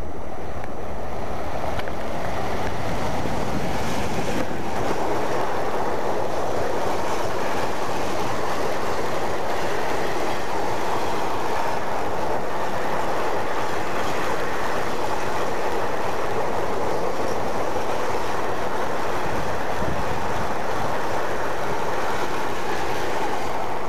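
Empty double-deck car-carrier freight wagons rolling past at speed, a steady, loud noise of wheels running on the rails.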